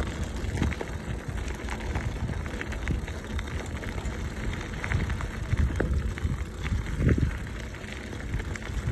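Bicycle tyres rolling over a gravel track, a steady crackling crunch of stones with a low rumble of wind on the microphone; a louder bump about seven seconds in.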